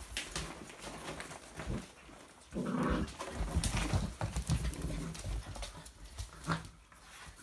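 Puppies play-fighting on a laminate floor: claws clicking and scrabbling, bodies bumping, with one short pitched puppy cry about three seconds in and a low rumbling scuffle after it.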